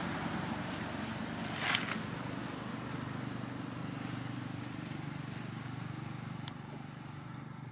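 Outdoor woodland ambience: a steady high-pitched insect drone over a low rumble, with a brief rustle about two seconds in and a faint click near the end.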